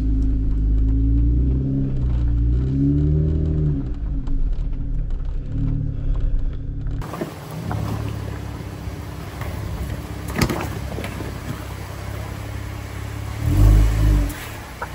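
Jeep engine revving up and easing off over and over for the first several seconds. After an abrupt change about seven seconds in, a rougher rumble with scattered knocks, then a short, loud rev near the end.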